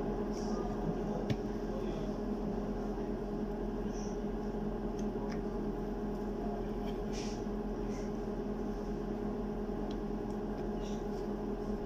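Steady mechanical hum of kitchen equipment, with a few faint soft taps and rustles as thin sheets of peeled cucumber are laid flat and stacked on a cutting board.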